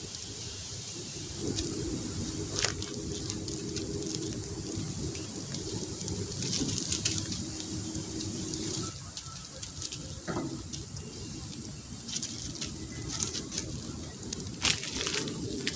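Small campfire of twigs and dry leaves crackling, with scattered sharp snaps.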